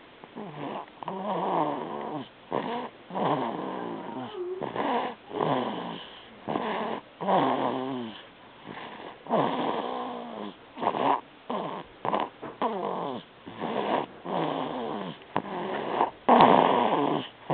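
A sleeping baby snoring in an uneven run of short snores, several every few seconds. Some snores have a pitched, falling tone.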